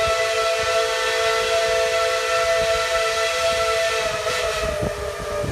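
Steam whistle of Tweetsie Railroad No. 12, a 4-6-0 narrow-gauge steam locomotive, blowing one long, steady blast with several notes sounding together as a chord.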